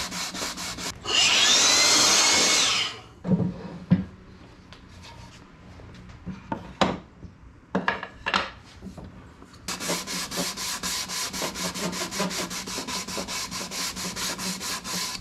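A sanding block rubbed back and forth by hand, with 220-grit paper, along the edge of an African mahogany door frame piece, in quick regular strokes. Near the start a louder steady rushing noise lasts about two seconds. The strokes then stop for several seconds, with a few knocks and clicks, and start again about two-thirds of the way in.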